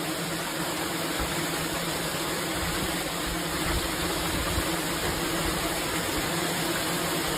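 Honeybees buzzing in a mass, a steady drone with hiss that holds level throughout.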